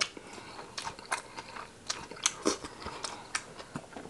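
Eating sounds: a mouthful of lettuce wrap being chewed and sauce sucked off a finger, giving irregular wet smacks and clicks.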